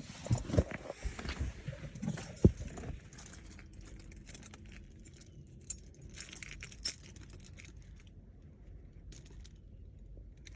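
A bunch of keys jangling and clinking, busiest in the first three seconds, with further brief jingles about six to seven seconds in and again near nine seconds.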